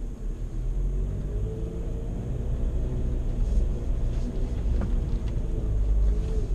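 VW Amarok's 2.0 BiTDI four-cylinder twin-turbo diesel running as the pickup drives off-road, a steady low rumble whose pitch rises and falls gently. A few short knocks and clicks about two thirds through.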